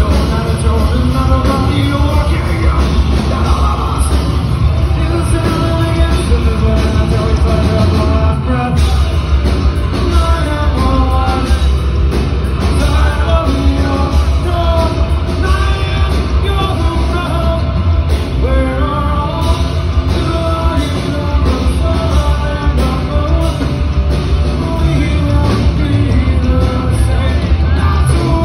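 Live rock band playing loud through a venue PA: a singer's voice over electric guitar, drum kit and heavy bass.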